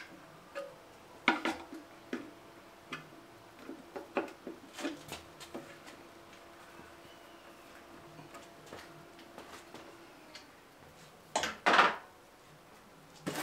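Scattered metallic clicks and clinks of a screwdriver prying at a stuck aluminium valve cover on a Honda K20 engine, with a louder double clank near the end.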